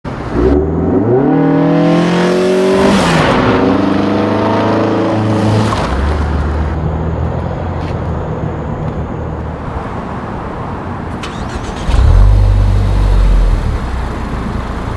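A car engine accelerating, its note climbing in pitch for a couple of seconds, dropping back and then running steadily. About twelve seconds in, the 2013 Ford Focus ST's turbocharged 2.0-litre four-cylinder engine revs briefly and loudly, heard at its twin exhaust tips.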